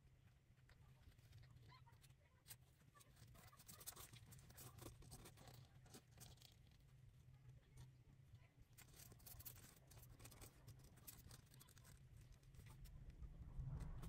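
Near silence: faint scratching and rustling as newborn kittens push and scrabble with their paws on the cardboard box and cloth while suckling, over a low steady hum.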